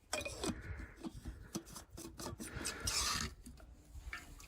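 Irregular scraping and rubbing close to the microphone, with scattered small clicks and a brief louder rasp about three seconds in.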